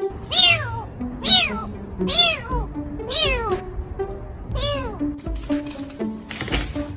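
A cat meowing five times at about one-second intervals, each meow rising and then falling in pitch, over background music.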